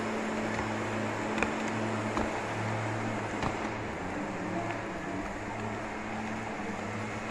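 A steady low mechanical hum, one low note with another an octave above, under an even noisy wash, with a few faint ticks scattered through it.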